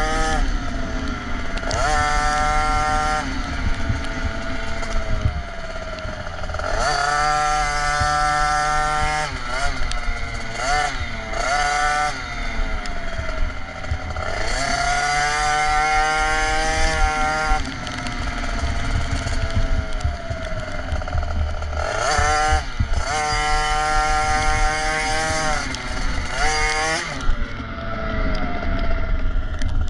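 KTM SX 50's 49cc single-cylinder two-stroke engine revving as the mini motocross bike is ridden around a dirt track. The engine pitch climbs in four long runs, with shorter blips between them, and drops back each time the throttle is eased for a corner.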